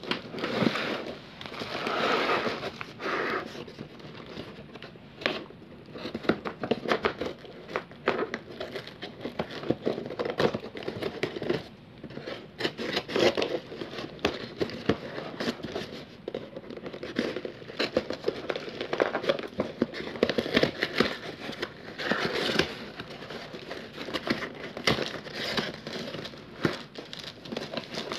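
Scissors cutting through a cardboard parcel box and its packing tape: irregular snips, scrapes and cardboard rustling as the box is cut and its flaps pulled open. Toward the end, crinkled kraft-paper wrapping crackles as it is handled.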